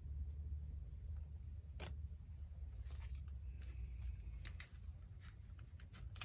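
Low steady hum with scattered light clicks and taps, several close together in the second half.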